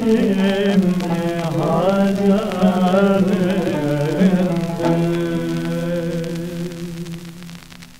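Closing phrase of an Ottoman classical şarkı in makam Uşşak, played from a digitized 78 rpm shellac record. Ornamented singing settles about five seconds in on a long held final note that fades out near the end, with faint record-surface crackle throughout.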